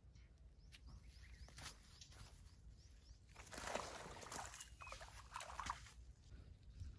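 Water splashing and dripping as a mesh net bag is dipped into shallow pond water and lifted out, loudest about halfway through, with a few light clicks before it.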